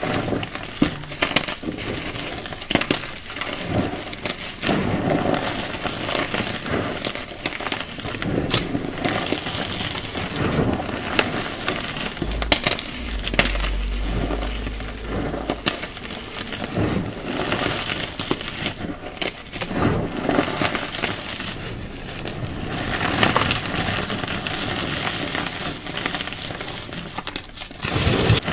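Hands crushing and crumbling dry, dusty clumps of coloured powder, a dense crunchy crackle full of small sharp cracks and crumbles. A brief low rumble comes about halfway through.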